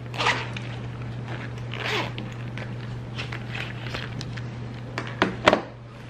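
Zipper on a soft carrying case being pulled open in several short scratchy strokes. Two sharper knocks come near the end as a capacitor tester is set down on the desk.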